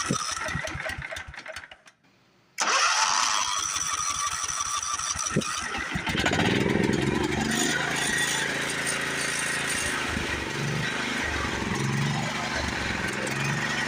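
Small gasoline engine on a homemade sawmill being key-started on choke: the starter cranks it, the sound fades away to a brief silence, then cranking starts again suddenly and about six seconds in the engine catches and runs with wavering revs.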